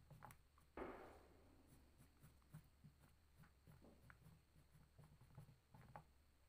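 Near silence: faint scratching of a green crayon in short strokes on paper, with one short soft rustle about a second in.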